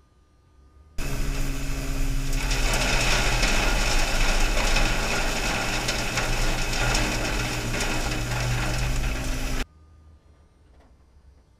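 Victory Sweepers E600 battery-powered tow-behind sweeper running: a steady motor hum under the hiss and scrape of its spinning brush sweeping leaf debris off asphalt. It starts suddenly about a second in, the hiss grows stronger a moment later, and it cuts off suddenly near the end.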